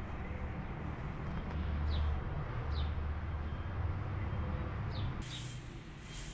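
A small bird gives about four short, falling chirps over a steady low outdoor rumble.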